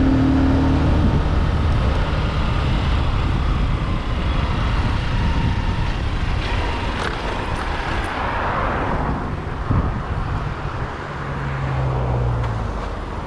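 Motorcycle ride on a paved road: the engine runs steadily under a constant rush of wind and road noise, with a louder swell of noise around eight seconds in.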